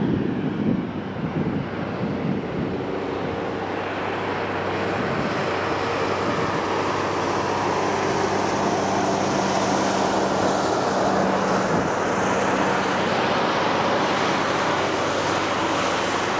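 Jet airliner engines running: a steady rushing noise with low steady hum tones underneath, growing gradually louder over the first half and then holding.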